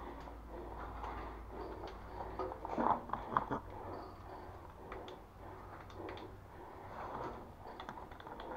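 Scattered sharp knocks in a small tiled room, loudest as a cluster of cracks about three seconds in, with fainter knocks and shuffling around them: paintballs splattering on the tiled wall and the player's gear knocking.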